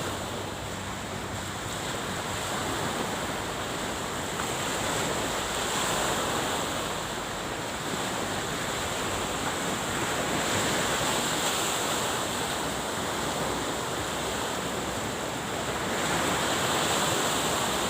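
Sea waves washing against the shore, a steady rushing that swells and eases every few seconds, with wind on the microphone.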